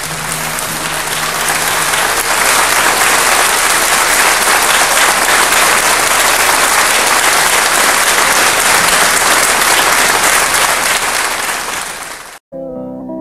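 Audience applauding, building up over the fading last notes of a song, holding steady and then thinning out. It cuts off abruptly near the end, and keyboard notes begin.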